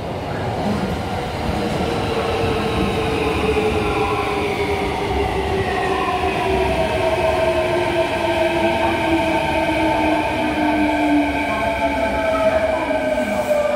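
Kintetsu 5820 series electric train pulling in and braking, its VVVF inverter motor drive giving a set of whining tones that fall steadily in pitch as it slows, over the rumble of wheels on the rails.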